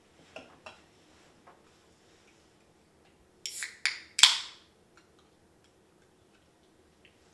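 Two light knocks near the start. About three and a half seconds in, an aluminium drink can is cracked open: two quick cracks from the tab, then the loudest pop with a short fizzing hiss trailing off.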